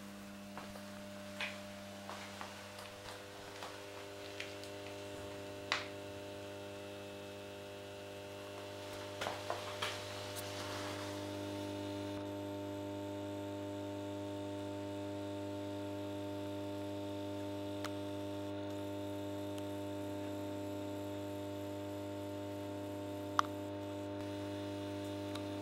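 The old 125 W magnetic choke ballast of a mercury-vapour lamp hums steadily at mains frequency. A few short clicks and knocks come in the first ten seconds. About twelve seconds in, the hum grows a little louder and fuller.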